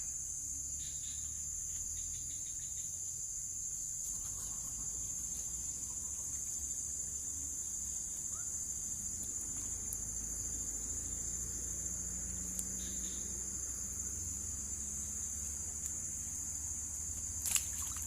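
A steady, high-pitched insect chorus drones without a break. Near the end there is a single sharp knock.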